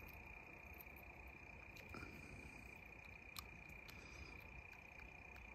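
Near silence, with a faint steady high-pitched insect trill running throughout. A few faint small clicks come as a screwdriver turns the 1911's rear-sight adjustment screw.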